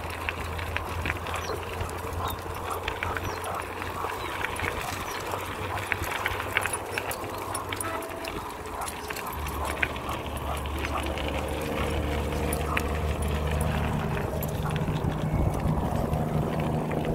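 Wheels and two German Shorthaired Pointers' paws crunching along a dirt and gravel path, with many small scattered clicks, over a low steady hum that shifts in pitch a few times.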